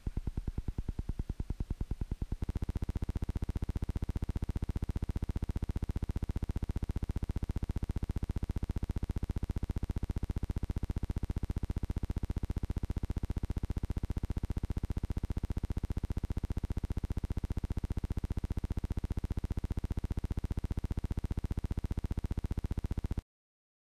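Steady electronic buzz with a fast, even pulse that grows stronger about two seconds in and cuts off abruptly near the end; no gunshot stands out.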